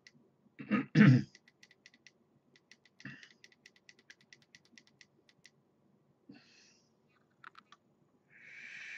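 A man coughs once, then a few seconds of quick, light clicks follow. Near the end comes the hiss of a long draw on an electronic cigarette.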